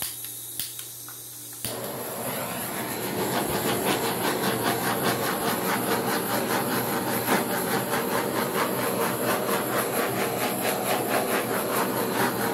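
Handheld gas torch flame burning with a steady rushing hiss, starting about a second and a half in, as it is passed over wet acrylic paint to pop air bubbles.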